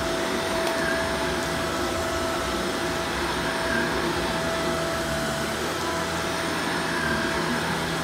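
Shark upright vacuum cleaner running steadily as it is pushed over carpet: an even rush of air with a steady motor tone.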